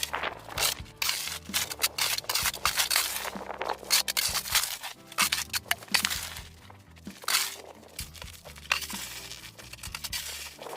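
Snow shovel scraping and scooping snow in quick, irregular strokes, with crunching as the snow is broken up and thrown.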